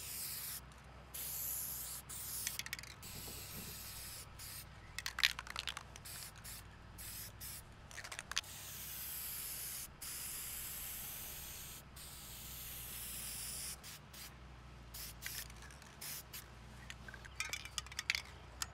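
Aerosol can of Rust-Oleum hammered-finish spray paint hissing in several long sprays, the longest a few seconds each, with short breaks and a few small clicks between them.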